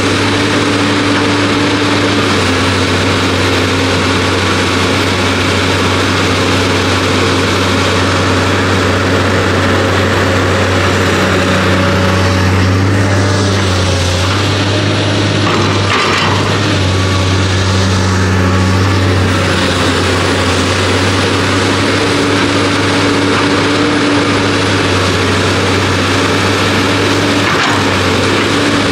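Excavator's heavy diesel engine running steadily at working speed, its note shifting several times around the middle as it works.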